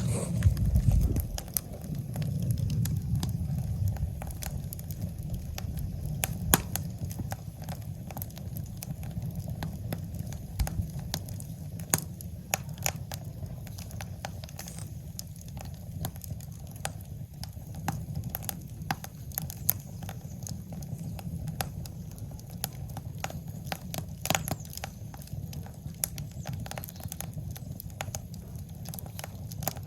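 Firewood fire crackling, with sharp pops at irregular intervals over a low steady rumble of the flames.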